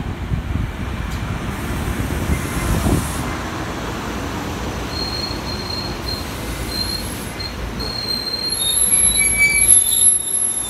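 SEPTA Silverliner IV electric commuter train rumbling along the platform as it pulls into the station, with a high-pitched wheel and brake squeal that grows stronger near the end as it slows.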